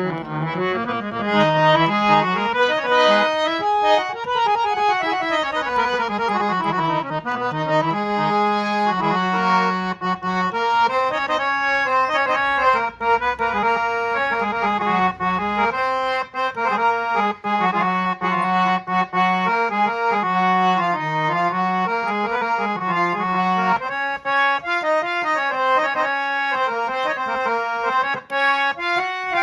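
Folding harmonium with nine stops being played: a melody of held reed notes that steps up and down in pitch, with a steady drone beneath.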